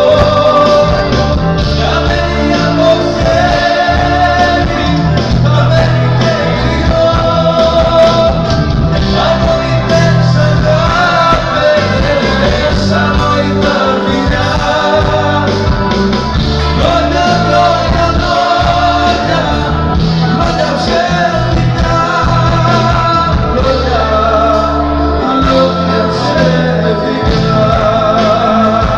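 Two male singers performing a Greek popular (skyladiko-style) song live into microphones, backed by a loud amplified band with heavy bass.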